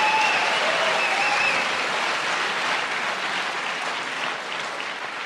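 A hall audience applauding, the applause slowly dying away.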